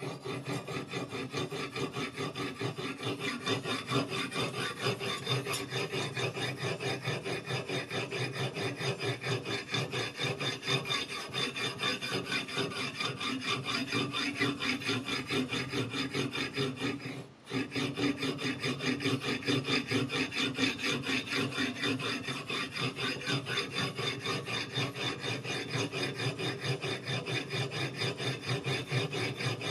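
Whetstone on a guided-rod sharpening system scraping back and forth along the steel edge of a Chinese chef's knife in quick, steady strokes. The strokes pause for a moment a little past halfway, then resume.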